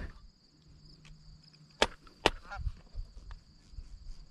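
Faint calls of Canada geese coming in, with two sharp clicks about half a second apart near the middle.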